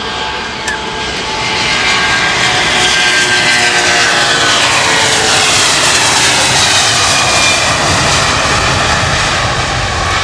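Airbus A330-300 twin-engine jet airliner at takeoff power passing the listener: the jet noise swells, holds loud, then starts to fade, with its whine falling in pitch as it goes by.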